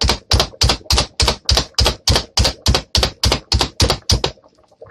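Hand-pressed plunger food chopper pumped rapidly on a cutting board, chopping vegetables: an even run of sharp clacks, about four a second, that stops about four seconds in.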